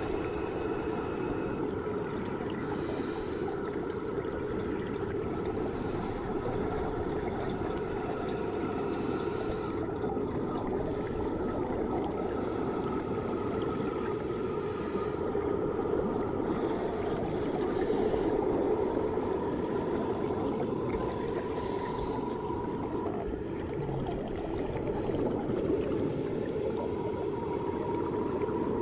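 Swimming-pool ambience heard through a submerged microphone: a steady, muffled wash of noise with faint steady tones running above it.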